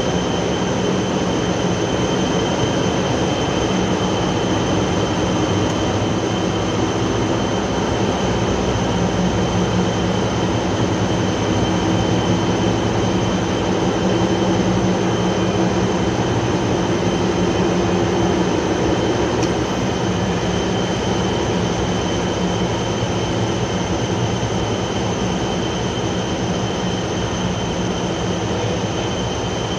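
A large diesel generator engine running steadily, a loud constant mechanical din with a steady high-pitched whine over it.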